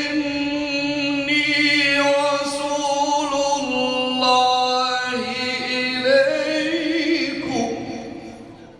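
A man reciting the Quran in a melodic maqam, holding long ornamented notes in one unaccompanied voice. The voice fades out near the end.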